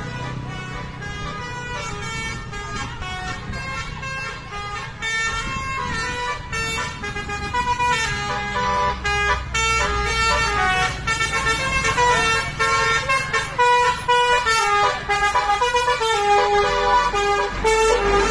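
Basuri multi-tone 'telolet' bus horn playing a quick tune of stepping notes over a low engine rumble, louder in the second half.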